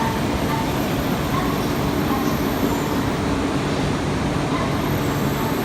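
A train running along the track: a steady, unbroken rumble of wheels and running gear with a faint low hum.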